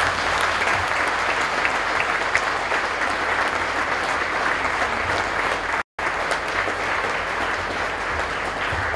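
Audience applauding steadily, the clapping cut by a split-second gap of silence about six seconds in.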